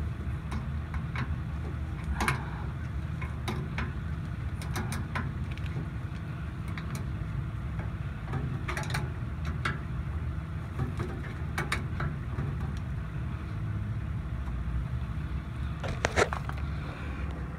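Ratcheting wrench clicking in short irregular runs as the caging bolt nut is wound down on an air brake spring chamber, compressing the spring to cage the brake. A steady low rumble runs underneath.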